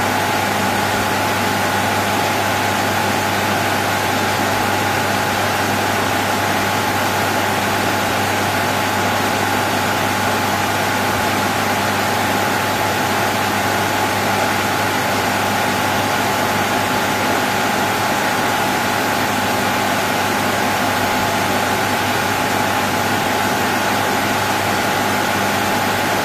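Steady ambient noise of a computer server room: a dense whoosh of cooling fans with a constant electrical hum and whine at several fixed pitches, unchanging throughout.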